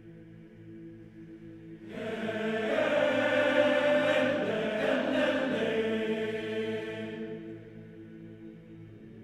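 Male choir singing a quiet, held drone chord in an Estonian folk setting built on herding calls. About two seconds in, a much louder and brighter vocal line swells in for about five seconds, then falls back to the soft drone.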